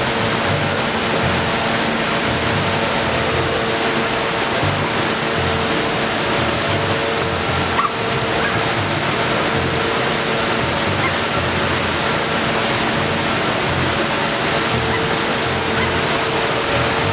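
Minnehaha Falls, a waterfall on Minnehaha Creek, crashing into its plunge pool with a steady rushing roar of falling water.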